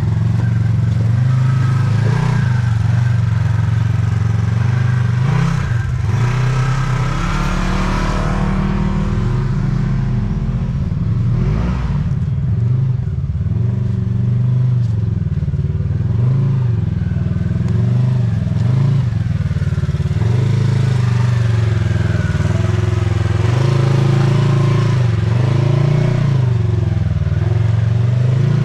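Polaris RZR side-by-side's engine running under constantly changing throttle, its pitch rising and falling every second or two, with a few knocks.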